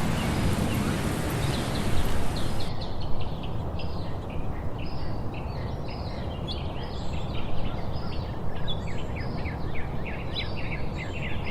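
Nature ambience: many short, high-pitched chirps that sweep downward, repeating several times a second over a steady noisy background. A bright hiss cuts off about three seconds in.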